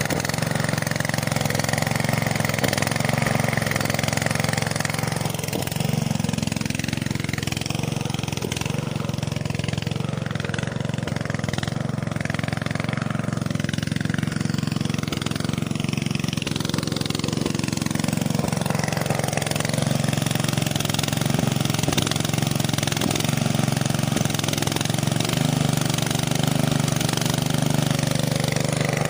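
Small motor of a homemade miniature flour mill running steadily, an even drone that holds the same pitch and loudness throughout.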